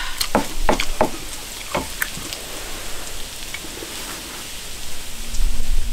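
Food sizzling in a grill pan on a tabletop burner, with a few clicks of a wooden spatula against the pan in the first two seconds. A low rumble comes in near the end.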